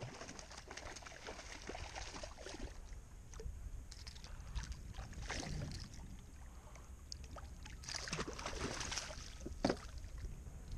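Water sloshing against a plastic kayak hull, with irregular splashes from a hooked trout thrashing at the surface, strongest in the second half.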